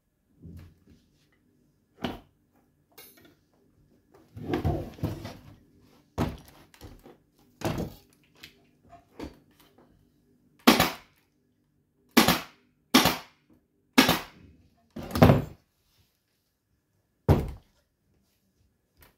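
Pneumatic upholstery staple gun firing staples through fabric into a wooden chair frame: about six loud, sharp shots at irregular intervals in the second half, with softer thumps and fabric handling before them.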